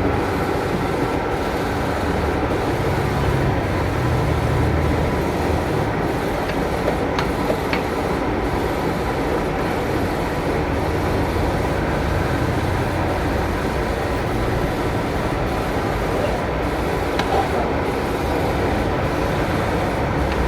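Steady mechanical running noise from machinery, with a few faint clicks.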